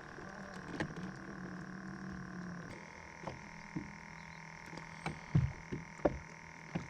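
Electric trolling motor whining steadily as it holds the boat on spot lock. Its pitch steps up about a third of the way in as the motor adjusts, with a few light knocks against the boat.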